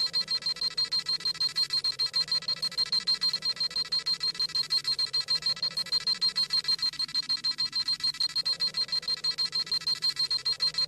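Dragon Ball Z scouter sound effect: a rapid, even electronic beeping, about seven high beeps a second, as the scouter scans a power level.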